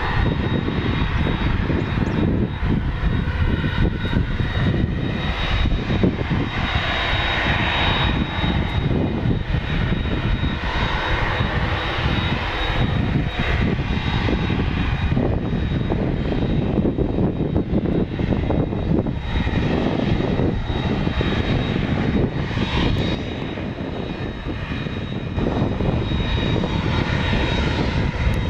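Airbus A300 freighter's twin jet engines running at taxi power: a steady high whine over a low, uneven rumble as the jet taxis.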